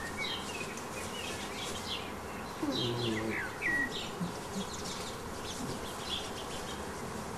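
Short, high, falling animal chirps and squeaks over a steady hiss, with a brief low whine about three seconds in.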